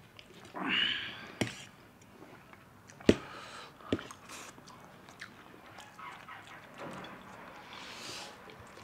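Two people eating chow mein noodles: slurping and chewing, with a few sharp clicks of steel forks against steel plates.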